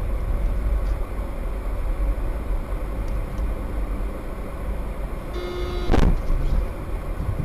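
Steady road and engine rumble of a moving car. About five seconds in, a car horn blares for about half a second, then a sharp crash impact, the loudest moment, with clatter after it.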